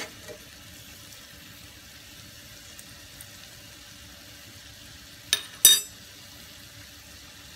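Green beans and carrots sizzling softly in a stainless steel frying pan on the heat, a steady low hiss. About five seconds in come two sharp, ringing metallic clinks close together, the loudest sounds here.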